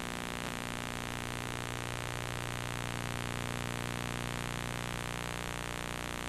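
Steady electrical hum with hiss, a constant buzz strongest in the low range with no music or voice over it.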